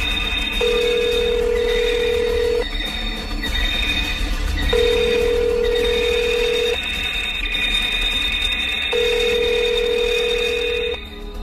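A telephone ringing with a plain electronic tone: three two-second rings about two seconds apart, over soft sustained background music.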